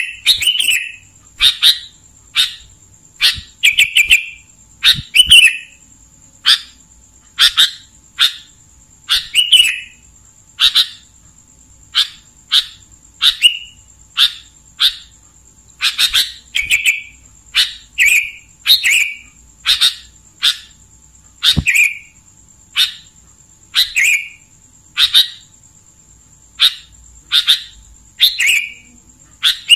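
Sooty-headed bulbul (kutilang) singing: short clear phrases repeated about once a second, with a faint steady high whine underneath.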